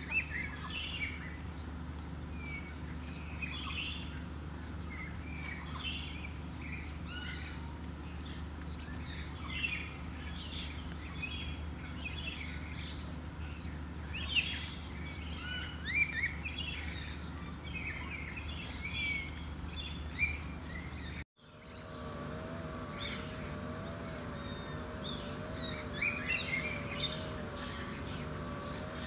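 Many small birds chirping in short, scattered calls, over a steady high-pitched hum. About two-thirds of the way through, the sound drops out for an instant and the background changes, with a faint wavering tone added after.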